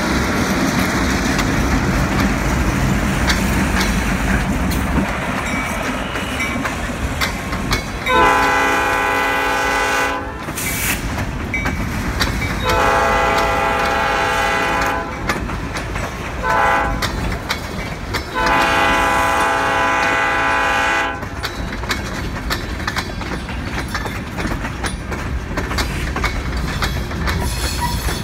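EMD GP38-2 locomotive's diesel engine rumbling past, then its Nathan P5 five-chime air horn sounding loud in the grade-crossing pattern, long, long, short, long, starting about a third of the way in. Freight cars roll by throughout, wheels clicking over the rail joints.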